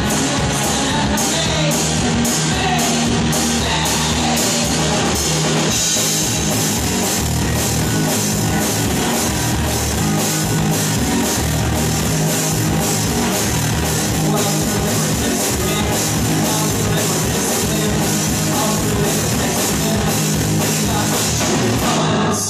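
Live rock band playing loudly: drum kit, electric guitar and bass guitar, driven by a fast, even drum beat.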